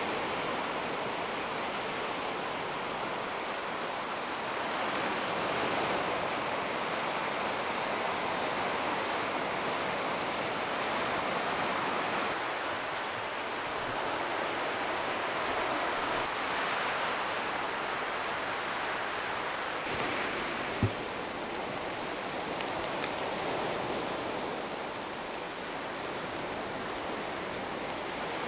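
Sea surf washing ashore in a steady rushing hiss that swells and ebbs slowly, with one short sharp knock about three-quarters of the way through.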